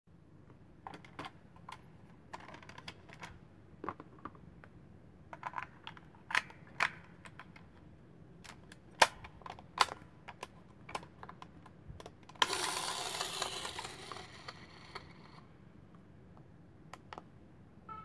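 Plastic clicks and taps from handling a toy transformation device and pressing its keypad buttons, irregular and scattered. About twelve seconds in, a hiss starts suddenly and fades away over about three seconds.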